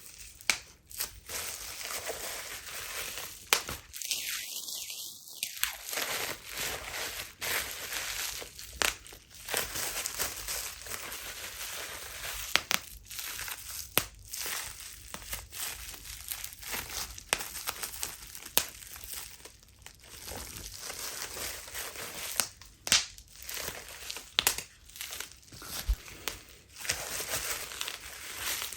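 Bubble wrap being crinkled and squeezed by hand, with frequent sharp pops at irregular intervals as the bubbles burst.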